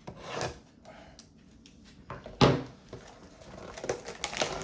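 A foil trading-card pack being cut open with scissors and its wrapper crinkled, with a single sharp thump about halfway and crackling that grows denser near the end.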